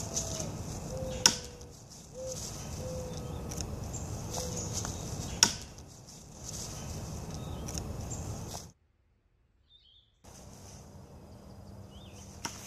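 A True Flight Thrower throwing knife hitting a dead tree, striking the wood with a sharp thunk twice, about four seconds apart, over a steady outdoor background. Later the sound cuts out briefly, then a quieter steady background returns with one small click near the end.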